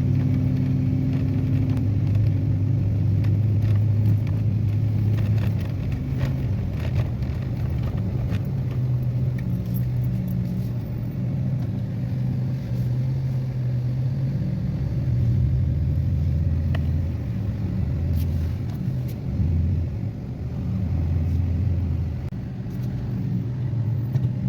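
Four-wheel-drive pickup truck engine and road noise while driving: a steady low hum whose pitch shifts up and down a few times as the speed changes.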